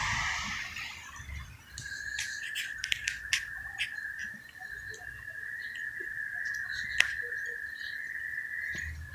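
Night street ambience: a passing car fades out in the first second. Then a steady high thin whine, like an insect, holds through, with a quick run of sharp clicks around two to three seconds in and a single sharp click about seven seconds in.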